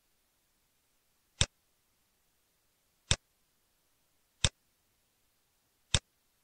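Computer mouse clicks: four single, sharp clicks about one and a half seconds apart.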